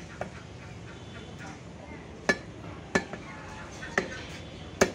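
Heavy butcher's cleaver chopping goat meat on a wooden stump block: a light knock just after the start, then four sharp chops roughly a second apart in the second half.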